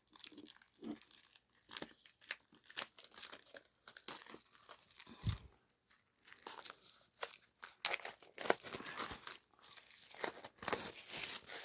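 Crinkling and rustling of album packaging being handled, in many irregular short crackles.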